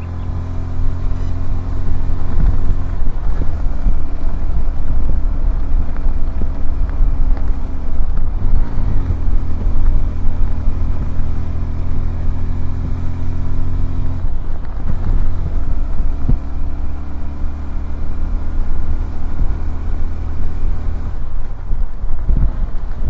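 Honda CBF125R's single-cylinder 125 cc engine running steadily under way. Its note shifts briefly about eight seconds in and changes again around fourteen seconds in.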